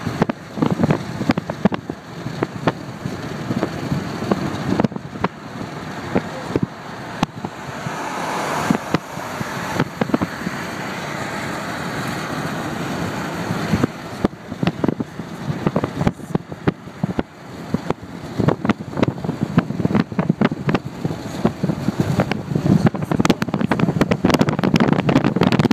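Road noise heard from inside a moving vehicle: a steady rush of tyres and traffic, louder for a stretch around eight to fourteen seconds in, with frequent small clicks and knocks throughout.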